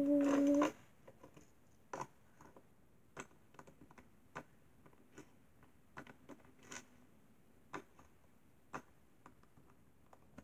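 Scattered light clicks and taps of small plastic toy figures and a stapler being picked up and set down on a hard surface by hand. A brief steady tone sounds at the very start.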